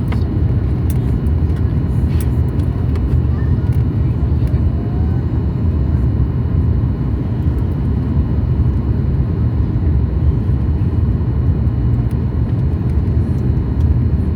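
Steady, loud low drone of jet engines and airflow inside the cabin of a Boeing 737 MAX 8 airliner in flight, with faint steady whining tones over it. Neither pitch nor level changes.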